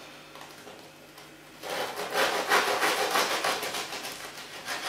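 A knife sawing through a crisp, crusty baguette on a wooden cutting board. The crust crackles and rasps under the blade, starting about a second and a half in.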